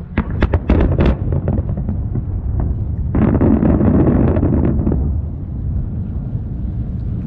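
Aerial fireworks: a quick string of sharp bangs in the first second or so, then about two seconds of dense crackling that cuts off abruptly. Wind rumbles on the microphone throughout.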